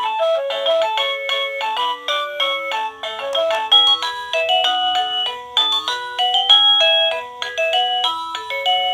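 KooPower wireless doorbell receiver playing one of its built-in electronic melodies through its small speaker: a quick run of clear, pure beeping notes stepping up and down, several a second.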